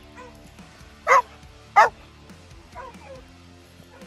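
Young Mountain Cur pup barking excitedly at a squirrel hide waved in front of him: two short, sharp barks about a second in, a little under a second apart, then a couple of fainter yips near the end.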